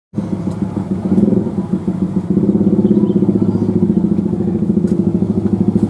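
Motorcycle engine idling close by: a steady, rapid chugging that steps up in loudness about two seconds in.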